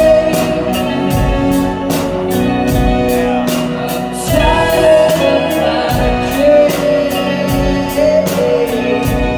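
Rock band playing live: electric guitar, bass guitar and drum kit, with a steady drum beat under sustained guitar chords.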